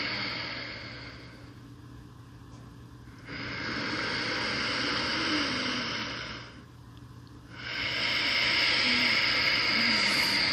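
Slow, audible breathing close to the microphone: the end of one long breath, then two more breaths of about three seconds each, with short pauses between them.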